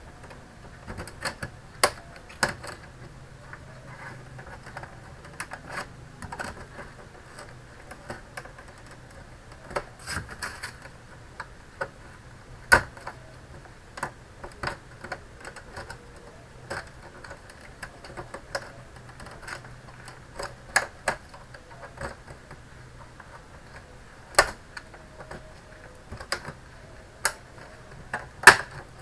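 Plastic snap clips of an all-in-one PC's casing clicking as they are pried apart, with irregular sharp clicks a second or so apart and a few louder pops.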